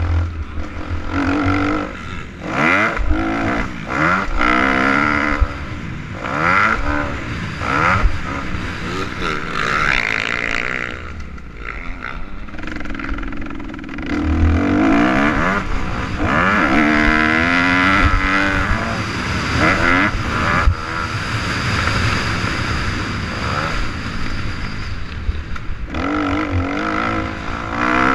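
Motocross dirt bike engine revving up and falling back over and over as the rider accelerates, shifts and rolls off around the track, heard from the rider's helmet.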